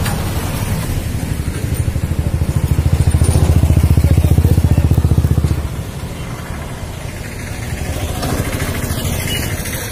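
A motor vehicle passes close by on the road, its engine rumble swelling from about a second in, loudest between three and five and a half seconds, then falling away to steady background traffic.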